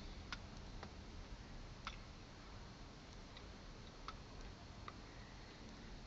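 A few faint, short clicks at uneven intervals over a low, steady background hum.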